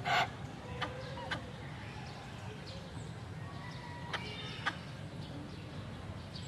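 Birds calling: a short loud call right at the start, then fainter calls, with a few sharp clicks.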